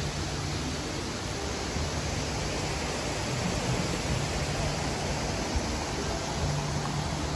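Steady rushing of water from a garden stream and waterfall, an even hiss with no break.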